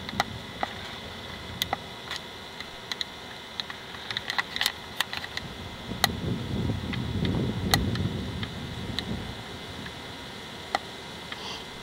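Handling noise from a handheld camcorder: scattered sharp clicks and ticks over a faint steady hum, with a low rumble from about six to nine seconds in.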